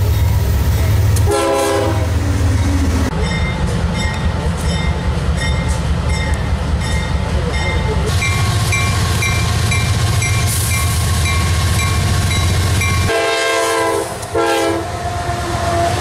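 Diesel freight locomotives running past with a deep engine rumble. A horn sounds briefly about a second and a half in, a bell rings about twice a second through the middle, and near the end the horn gives a long blast and then a short one.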